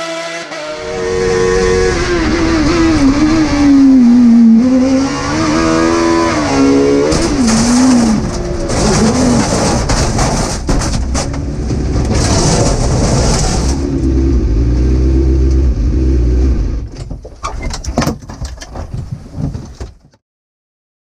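Speedcar GTR race car engine revving hard and changing up and down through the gears, its pitch rising and falling, heard first at the roadside and later from inside the cockpit. Near the end the sound breaks into short irregular bursts and then cuts off to silence.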